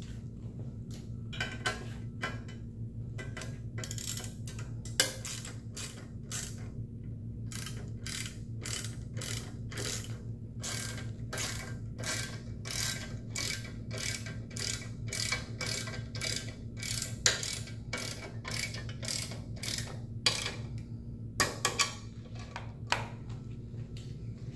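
Socket ratchet clicking in runs of several strokes a second as nuts on a motorcycle fender eliminator bracket are tightened. A steady low hum runs underneath.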